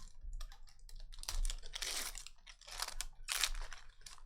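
Trading cards being handled at close range: a string of dry rustles, slides and crinkles with short clicks as cards and their packaging are shuffled and moved.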